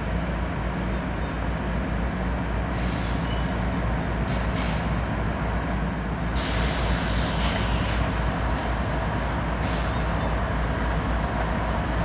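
CSX freight train's diesel locomotives running past with a steady low engine rumble, and short hissing bursts coming in every second or two.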